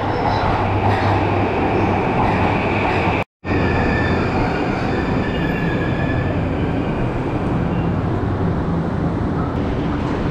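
JR East E235-1000 series Yokosuka/Sobu Line train running into an underground station platform and slowing to a stop, with faint brake and wheel squeal. The sound cuts out briefly about a third of the way in.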